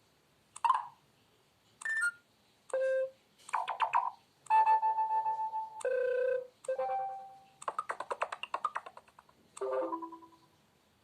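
KAZAM Trooper2 mobile phone's built-in alert tones played through its small speaker: a string of about nine short electronic chimes and jingles, each a few notes long, one after another with brief pauses between.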